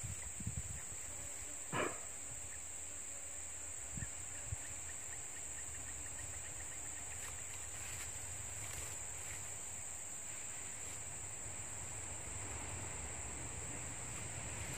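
Steady high-pitched drone of insects, crickets or cicadas, over a low outdoor rumble, broken by a few light knocks and clicks, the loudest about two seconds in.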